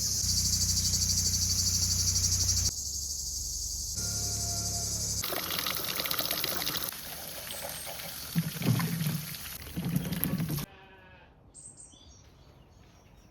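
Short outdoor clips cut together: a loud, high insect chorus with a fast even pulse, then animal bleating in a few short calls about eight seconds in.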